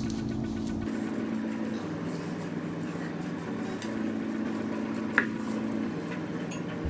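Silicone spatula scraping and folding thick banana bread batter of flour, butter and mashed banana in a mixing bowl: a soft, steady scraping with one short sharp tap about five seconds in.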